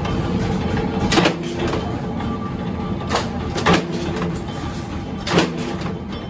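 Flywheel-driven mechanical power press running steadily, punching trowel-blade blanks out of a steel sheet, with a sharp metallic bang at each stroke: about four strokes at uneven intervals.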